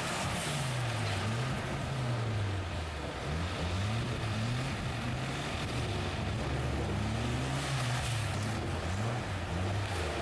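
Rock crawler's engine revving up and down over and over, in repeated rising and falling surges, as the tube-framed buggy claws its way up a steep, loose dirt and rock climb.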